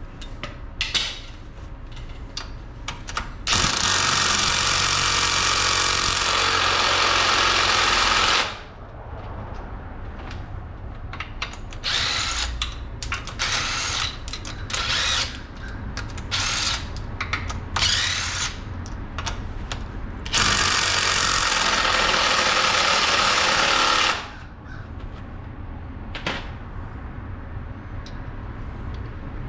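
Power tool running in two long bursts of about four to five seconds each, with several short bursts in between.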